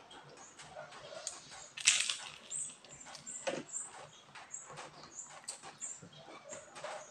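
Close-up chewing of crispy turon, a fried banana spring roll: crackling of the fried wrapper and wet mouth smacking, with one loud crunch about two seconds in.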